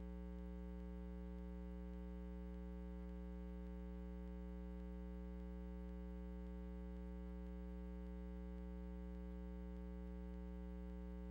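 Steady electrical mains hum: a low drone with a row of fainter, higher tones above it, and no field or crowd sound under it.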